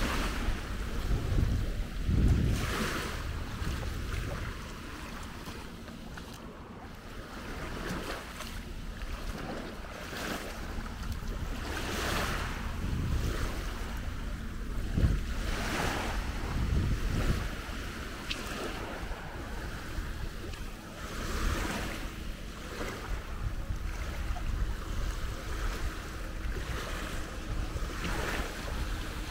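Small waves washing and lapping in shallow sea water, with soft splashing swells every few seconds. Wind buffets the microphone in low gusts.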